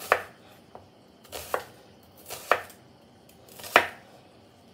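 Chef's knife slicing a red onion on a bamboo cutting board: four separate cuts, each ending in a knock of the blade on the wood, about a second apart, the last the loudest.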